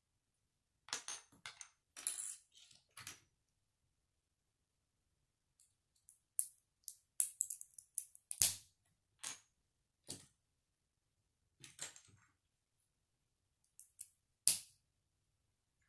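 Small plastic Lego bricks clicking and snapping together as they are handled and pressed on, in short irregular clusters of sharp clicks. The sharpest clicks come about eight and fourteen seconds in.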